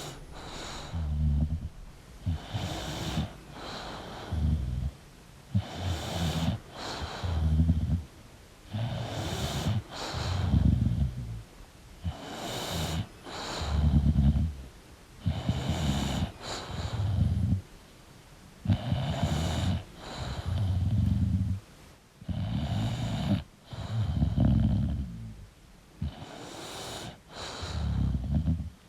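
English bulldog snoring in its sleep, with a steady rhythm of snores about every second and a half as it breathes in and out.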